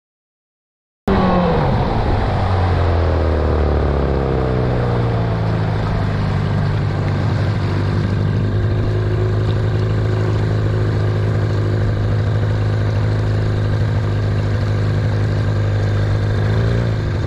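About a second of silence, then a boat's outboard motor running steadily as the boat moves along the river. Its pitch drops a little over the first few seconds, then holds even.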